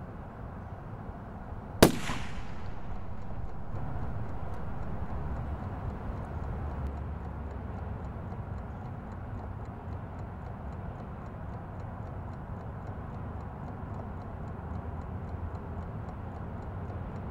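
A single gunshot about two seconds in: one sharp crack with a short ringing tail, over a steady low outdoor rumble.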